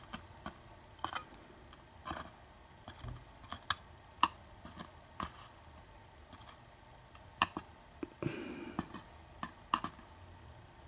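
Scattered light clicks and taps of small metal parts from a disassembled padlock being handled, at irregular intervals, with a brief scraping rustle about eight seconds in.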